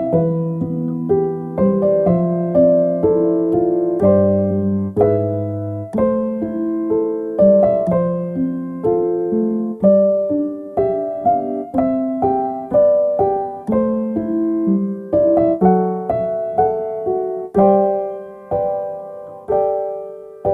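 Soft, slow piano music: chords and single notes struck a few times a second, each ringing and fading, with a phrase trailing off near the end.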